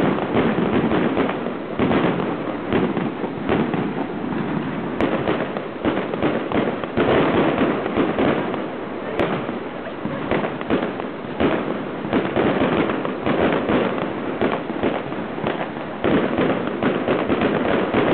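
Aerial fireworks display: a near-continuous barrage of sharp bangs and pops from shells bursting in quick succession, with heavier volleys about two, seven and sixteen seconds in.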